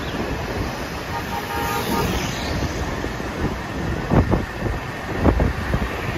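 Steady road traffic and wind rumble on the microphone, with two short dull knocks about four and five seconds in.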